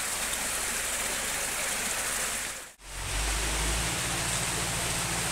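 Steady rushing noise, broken by a brief drop to silence about three seconds in; after the break a low engine-like hum runs beneath it.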